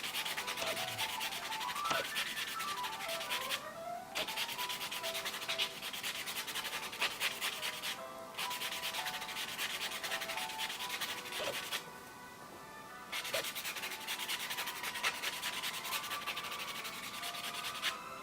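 Nail buffer rubbing rapidly over freshly sanded acrylic nails: a dense, scratchy rubbing with brief pauses about four and eight seconds in and a longer pause near twelve seconds.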